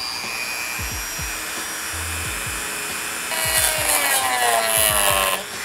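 Dremel rotary tool with a cutoff wheel spinning with a steady high whine, then biting into plastic spoiler tabs about three seconds in, louder and rougher, its pitch sagging a little under load. It stops near the end.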